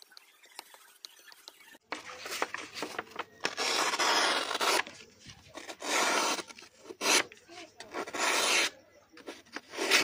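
Abrasive rubbing on the restored pocket knife: a run of long scraping strokes, each about half a second to a second, beginning about two seconds in after a quiet start with a few light ticks.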